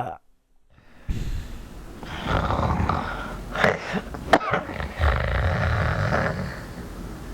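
A person snoring loudly and raggedly, starting about a second in after a moment of quiet.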